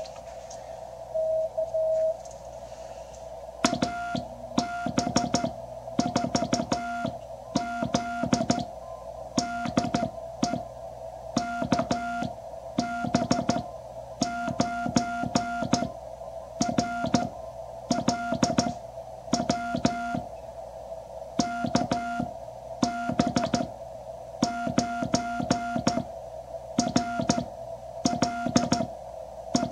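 Morse code sidetone from a QRP Labs QCX CW transceiver, a steady tone near 700 Hz keyed on and off by hand on a hand key, with a click on each element and receiver hiss underneath. It is sending a reply to AB4Z's CQ call in repeated groups. A short received tone comes before the sending, which starts about four seconds in.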